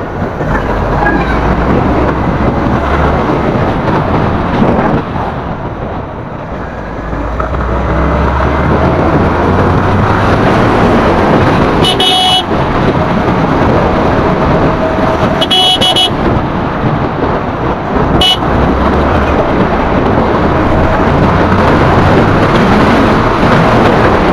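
Yamaha R15 V4's 155 cc single-cylinder engine running under way on the road, mixed with rushing wind and traffic noise, easing off about six seconds in and building again after. Short horn toots sound three times past the middle.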